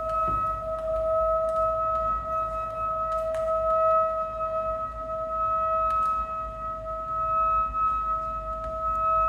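Ambient electronic music: a steady drone of two pure tones, one an octave above the other, held without a break, with a few faint clicks and a low rumble underneath.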